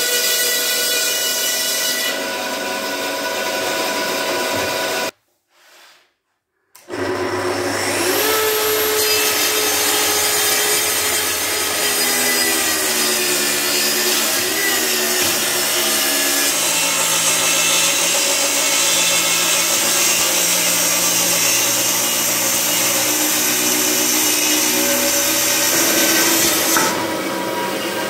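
Power saws cutting wood. First a bandsaw slices a log into a disc. After a short break, an electric track saw spins up about eight seconds in and cuts along a board, its tone dipping under load. Near the end a bandsaw cuts a panel.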